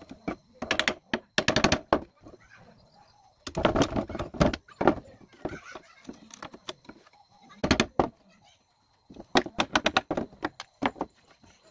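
Hammer tapping wooden sash bars and pieces into their joints in a timber window frame, a dry fit: several quick runs of sharp knocks on wood, separated by short pauses.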